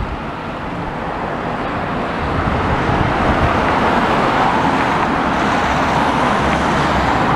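Road traffic: cars and vans driving past close by, a steady rush of tyre and engine noise that grows louder over the first couple of seconds and then holds.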